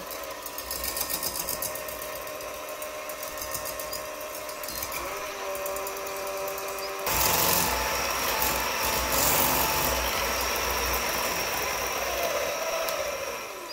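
Electric mixer running while whipping liquid cream into chantilly, a steady motor whine that turns suddenly louder about halfway through.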